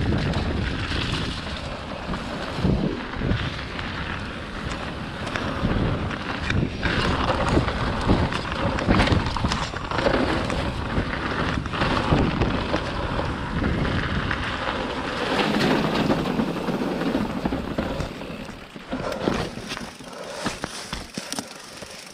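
Mountain bike ridden along a dirt trail: knobby tyres on dirt and leaves, the bike rattling and clicking over bumps, with wind buffeting the camera microphone. The noise drops sharply about eighteen seconds in as the bike slows, leaving scattered clicks.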